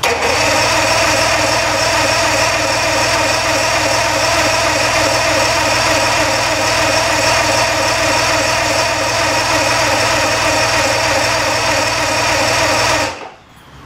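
Mercury 200 hp two-stroke V6 outboard running steadily at idle with its cowling off. The sound cuts off abruptly about a second before the end.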